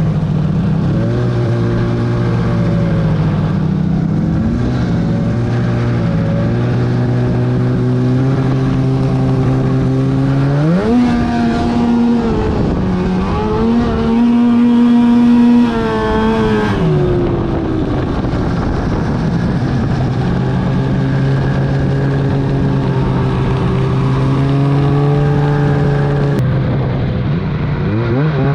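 2008 Arctic Cat F1000 Sno Pro snowmobile's two-stroke twin engine running under way at a steady speed. About ten seconds in, its pitch rises sharply as it is throttled up, holds high for several seconds, then drops back to a steady cruise.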